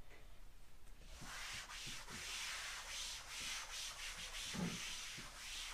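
Chalkboard eraser rubbing across a blackboard, wiping off chalk drawings with a steady scratchy hiss that begins about a second in.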